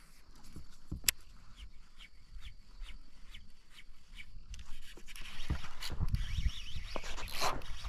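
Baitcasting reel being wound in: a light, regular ticking about four times a second, with a sharp click about a second in. In the second half, louder rustling with low knocks.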